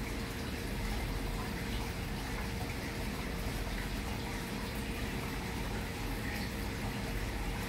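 Aquarium water bubbling and trickling steadily from the tank's aeration and filter, with a faint steady hum underneath.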